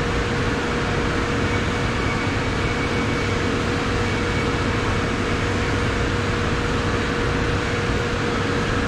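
Steady drone of running machinery, an even rushing noise with a constant hum tone and no change or break.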